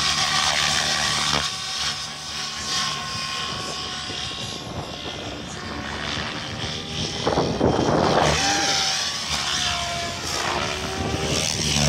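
Radio-controlled helicopter (SAB Goblin 700) in flight. Its rotor and drive whine rise and fall in pitch as it manoeuvres, with a louder rush of rotor noise about eight seconds in as it passes close.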